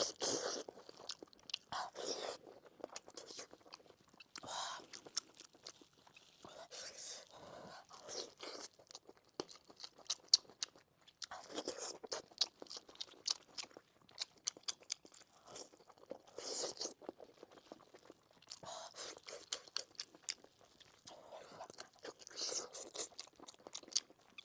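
Close-miked chewing of pork knuckle: wet smacking and squelching with many small crisp clicks, in irregular bursts of bites.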